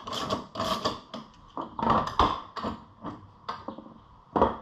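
Ratchet wrench clicking in a quick even rhythm as the bracket bolt is backed out, then stopping about a second in and giving way to scattered sharp clicks and taps of small metal parts being handled.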